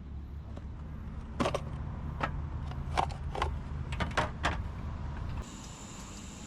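Objects being handled: about eight sharp clicks and knocks in quick succession over a low steady rumble. The rumble cuts off about five seconds in, leaving a steady hiss.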